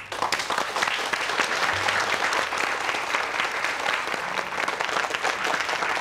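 A roomful of people applauding, the clapping starting all at once and going on steadily.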